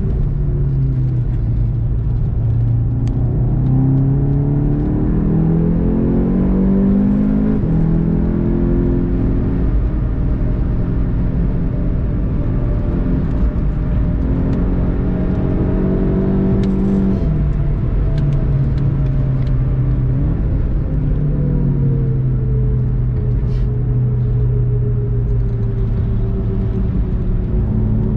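VW Golf 7 GTI TCR's turbocharged four-cylinder engine pulling hard through the gears, heard from inside the cabin. The pitch climbs and drops back at an upshift about two-thirds of the way through, eases off briefly, then climbs again near the end.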